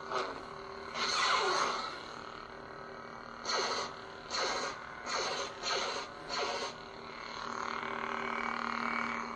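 SaberForge lightsaber's sound board playing a steady blade hum, with swing whooshes as the lit blade is waved: one longer sweep about a second in, five short ones roughly two-thirds of a second apart in the middle, and a slower swell near the end.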